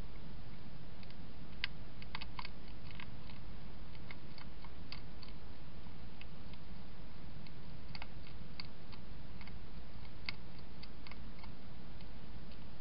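Wild European hedgehog eating from a bowl: irregular sharp crunches and clicks of chewing, coming in short clusters, over a steady low hum.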